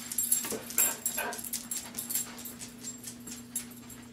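A dog making a few short vocal sounds in the first second and a half, over scattered clicks and a faint steady hum.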